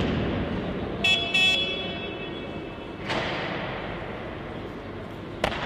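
Background noise of a weightlifting hall, with two short high-pitched tones about a second in and a sharp knock near the end.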